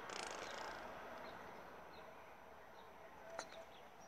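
Faint bird chirps in the background, short and scattered, with a brief hiss at the start and a single click about three and a half seconds in.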